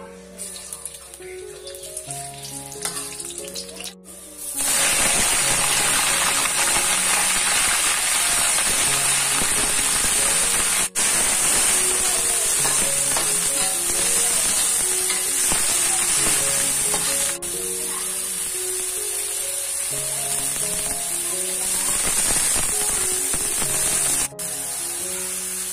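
Food frying in a hot pan, a loud steady sizzle that starts suddenly about four and a half seconds in and breaks off briefly a few times. Soft background music plays under it.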